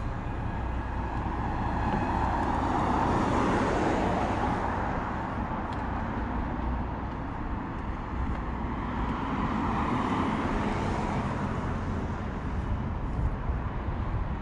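Two cars passing on a street, each swelling in and fading out, the first about two seconds in and the second near the end, over a steady low rumble.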